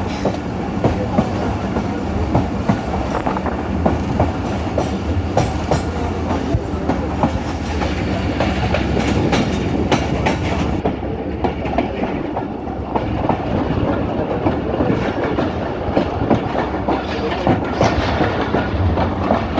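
Train running along the track, heard from aboard: a steady low rumble with frequent sharp wheel clicks and knocks over the rail joints.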